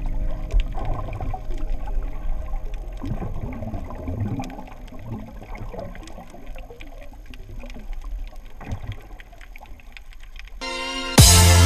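Underwater sound picked up by a GoPro in its waterproof housing while snorkelling: irregular water movement and bubbling gurgles. Near the end loud electronic music cuts in suddenly.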